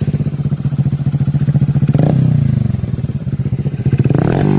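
100cc single-cylinder motorcycle engine running through a TWPO Dolphin aftermarket exhaust for a sound test. It idles with a steady rapid beat, with a throttle blip about two seconds in that rises and slowly falls back, and another blip near the end.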